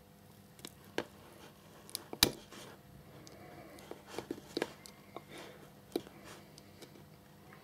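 Needle-nose pliers clicking and snapping against a male pin header as they work its black plastic spacer off the soldered pins: a string of short, sharp clicks, the loudest about two seconds in and several more close together around four to five seconds.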